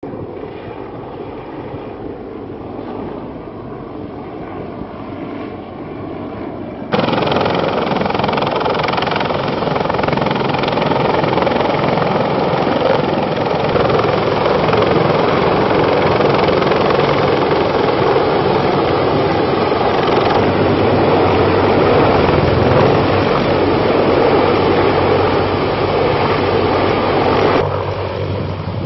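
Military helicopter rotor and turbine noise, steady throughout. It jumps suddenly louder about seven seconds in, where a heavy-lift CH-53 Super Stallion is heard up close, and drops back shortly before the end.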